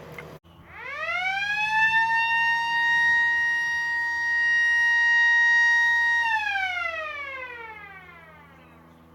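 Blast warning siren winding up, holding one steady wail for about four seconds, then winding down. It is the warning sounded before an explosive shot in rock is fired.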